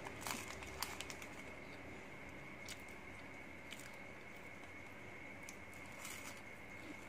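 Foil-lined wrapper of a chocolate wafer bar crinkling as it is handled, in short separate crackles that cluster in the first second. A crisp wafer bite comes about six seconds in. A faint steady high tone runs underneath.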